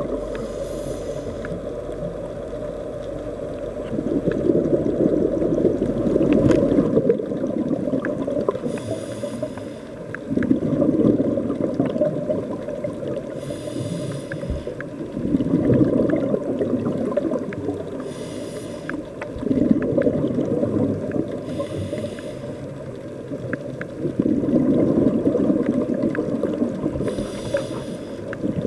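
Scuba diver breathing through a regulator: a short hiss with each inhale and a longer bubbling rumble as the exhaled air bubbles out, about six breaths in all.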